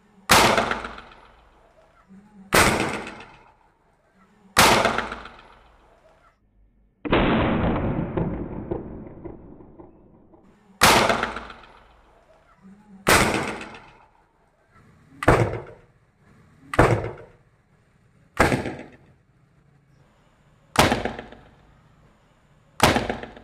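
Homemade PVC carbide cannon going off: acetylene from calcium carbide and water is set off by a lighter spark. There are about eleven sharp bangs spread over the time, each with a short echoing decay; the one about seven seconds in rings on longer.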